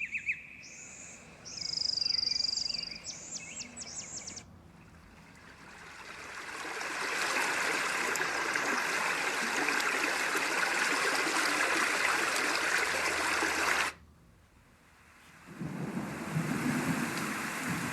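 Letsfit TP1 sleep sound machine playing its built-in sounds in turn. Recorded birdsong chirps for about four seconds, then a steady running-stream sound fades in and cuts off suddenly about fourteen seconds in. A low rumbling sound starts near the end.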